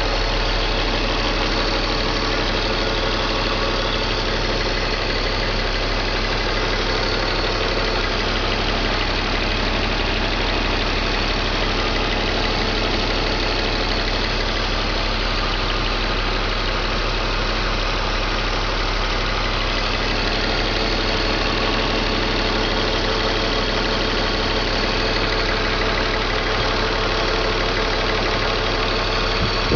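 BMW M54 2.5-litre straight-six engine idling steadily, in a car whose owner reports ignition misfires on cylinders 3 and 5 when cold.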